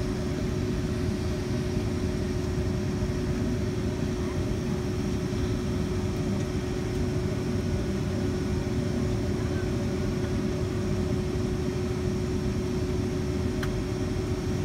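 Cabin noise of a Boeing 757-200 taxiing with its engines at idle: a steady low rumble with a steady hum over it.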